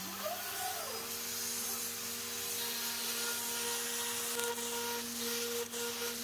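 CNC router running: a steady hiss with several held machine tones, and a short rising-then-falling whine about half a second in.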